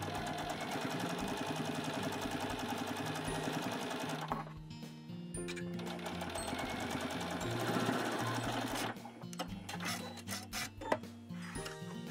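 Janome electric sewing machine stitching steadily at speed through layered cotton fabric, pausing briefly about four seconds in, then stopping about nine seconds in. Background music plays underneath.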